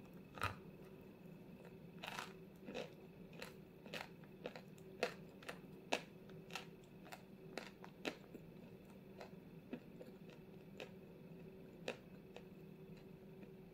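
Teeth biting and chewing a dry, crumbly white lump of edible chalky clay: a string of short sharp crunches and crumbles, irregular, about one to two a second.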